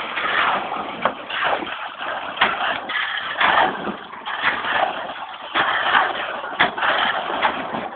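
Building-site work: irregular scraping noise with a sharp knock every second or so.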